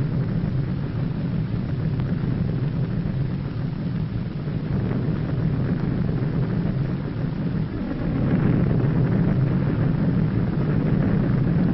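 Underwater nuclear explosion sound effect: a continuous low rumble and roar, growing louder about eight seconds in.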